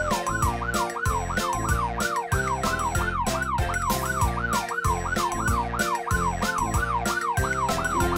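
Fast yelp siren sound effect, its pitch sweeping up and down about three times a second, over upbeat background music with a steady beat.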